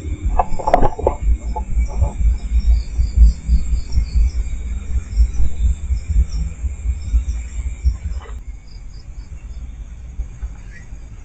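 Crickets and other night insects chirping steadily in several overlapping high trills, over a loud uneven low rumble on the microphone that eases off about eight seconds in. There are a few brief rustles in the first second or so.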